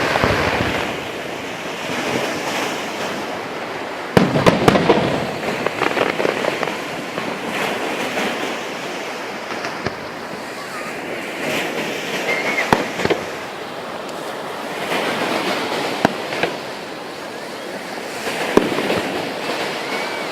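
Fireworks going off: sharp bangs over continuous crackling, with a cluster of bangs about four seconds in and single bangs later on.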